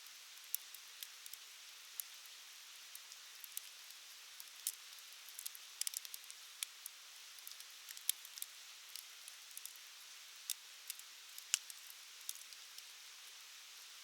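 Wood fire burning: a steady soft hiss with frequent, irregular sharp crackles and pops, the loudest about eleven seconds in.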